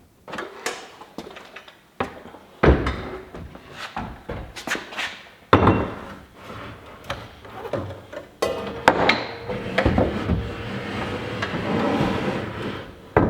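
Wooden knocks and thuds of cabinet parts being handled, with a longer stretch of scraping or sliding in the second half: drawers and panels of a shop cabinet going into place.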